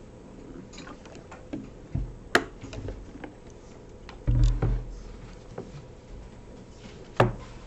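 A few scattered sharp clicks and knocks over quiet room noise, with a heavier low thump about four seconds in.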